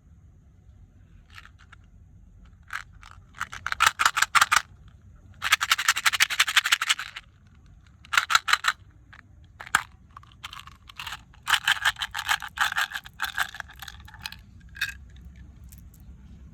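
Candies and their plastic packaging being handled, giving irregular bursts of crackling and rattling, some brief and some lasting a second or two.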